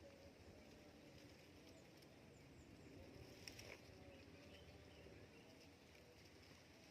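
Near silence: faint outdoor ambience with a few short, faint, high chirps from small birds and a soft click about three and a half seconds in.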